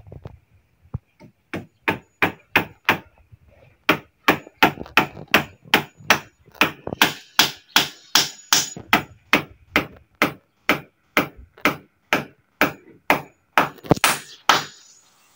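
Hammering: a fast run of hammer blows, about three a second, after a short first burst of a few strikes and a brief pause, stopping just before the end.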